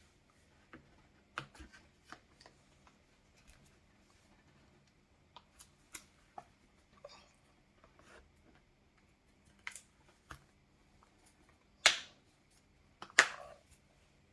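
Plastic FNT phone case being handled and fitted onto a Samsung S23 Ultra: scattered light clicks and rubs, with two louder clicks near the end.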